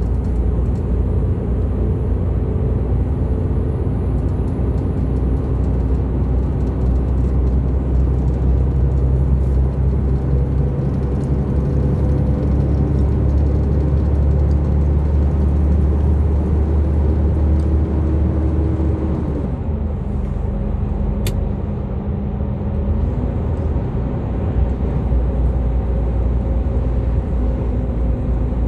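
Diesel lorry engine and road noise heard from inside the cab while driving: a steady low drone. The engine note drops for a few seconds about twenty seconds in, then rises again.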